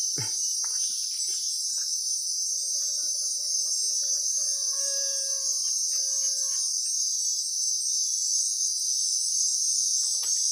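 Steady high-pitched insect chorus from the surrounding forest, unbroken throughout, with a few faint clicks and a faint held tone for a few seconds in the middle.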